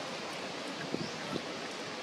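Outdoor ambience: a steady hiss of wind and rustling leaves, with a couple of soft taps about a second in.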